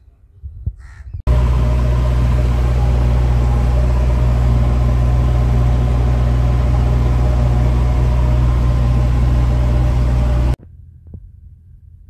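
JCB 3DX backhoe loader's diesel engine running at a steady speed, heard from inside the cab while driving. It cuts in abruptly about a second in and cuts off suddenly near the end.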